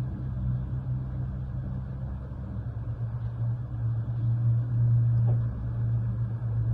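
Steady low rumble that swells a little around the middle.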